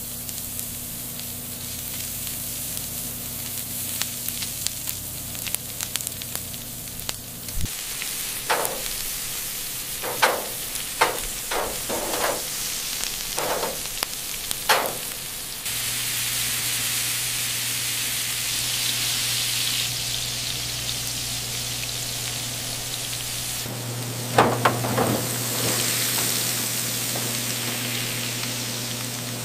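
Beef burger patties sizzling on a hot grill: a steady hiss with sharp pops and crackles scattered through it, clustered in the middle and again near the end.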